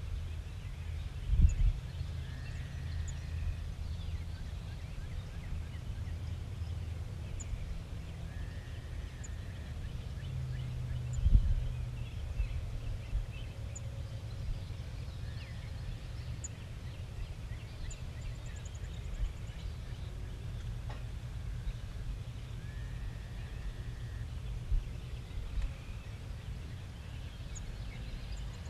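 Outdoor ambience: a steady low rumble with a couple of gusty thumps, and a short bird call repeating every several seconds over faint high chirps.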